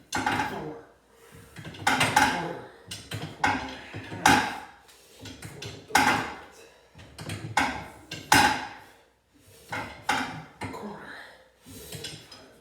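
Repeated metallic clanks, a sharp knock about every second with a short ring after each: steel winding bars working a garage door's torsion spring.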